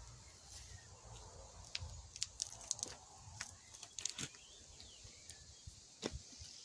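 Footsteps on gritty garden paving: a scatter of short crisp crunches and clicks over a low rumble of wind and phone handling.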